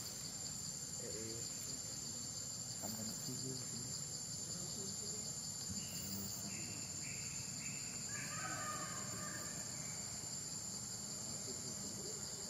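Steady, high-pitched insect chorus, a fast pulsing drone that runs without a break.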